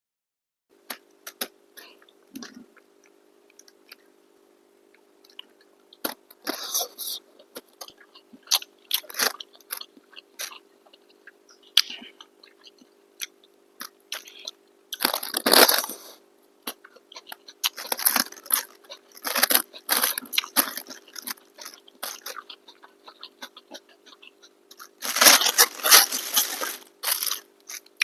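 Close-up eating sounds: crunching and chewing of food, with wet mouth clicks and louder crunchy bursts around the middle and near the end. A steady low hum runs underneath.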